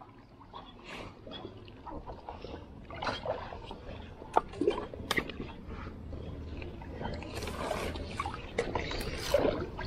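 River water sloshing and trickling around an inflatable paddleboard, with scattered clicks and knocks throughout.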